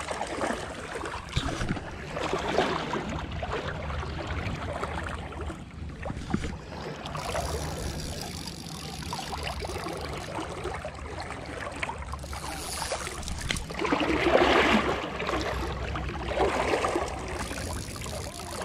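Shallow river water splashing and trickling close around a wading angler, with a steady low rumble underneath. Two louder splashy surges come near the end.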